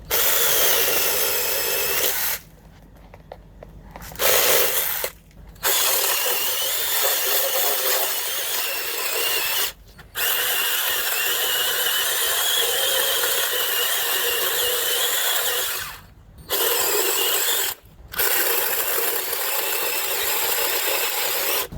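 Small, cheap mini chainsaw running and cutting bark off a log, with a high whine. It cuts out and restarts five times. Its little motor is getting hot.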